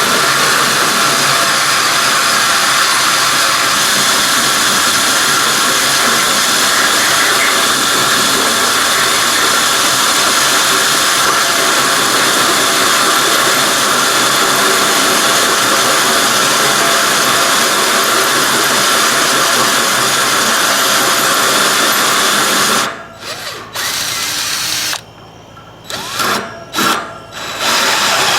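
Handheld electric drill turning a 1 3/16-inch hole saw slowly through the 1/4-inch steel wall of 6-inch tubing, cutting steadily for about 23 seconds. It then stops and starts in several short spurts before cutting on again near the end.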